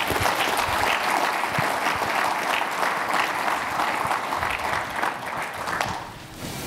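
Audience applauding, a dense run of clapping that dies away near the end.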